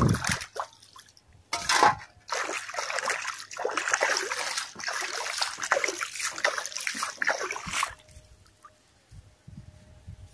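Water in an azolla bed being splashed and swished by hand to spread the floating azolla, with a loud splash about two seconds in, then continuous sloshing that stops about eight seconds in.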